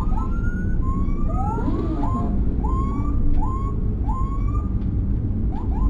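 Emergency sirens from the police-escort and ambulance convoy giving short rising whoops, roughly two a second, each sweeping up and levelling off. They are heard from inside the ambulance cabin over a steady low rumble of engine and road noise.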